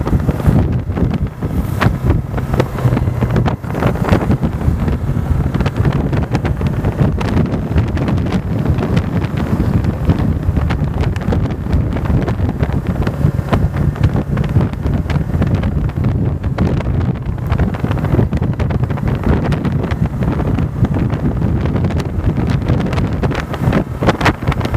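Wind buffeting the microphone on a moving Yamaha motorcycle, with the engine running steadily underneath.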